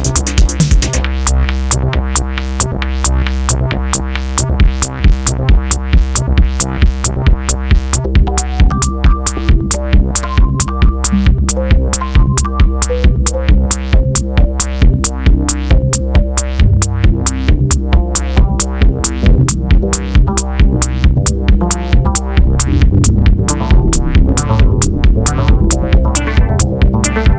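Korg Volca synthesizer playing a looping electronic pattern: a steady drum-machine beat over a held bass, with short synth melody notes. A fast, bright hi-hat-like layer drops out about a second in.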